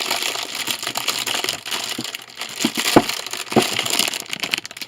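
Packaging crinkling and rustling as a camera wall-mount boom arm is handled and unwrapped, with a few light knocks around the middle.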